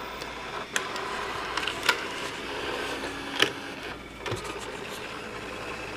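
Panasonic AG-450 S-VHS camcorder's tape transport running in playback: a steady mechanical whir broken by a few sharp clicks.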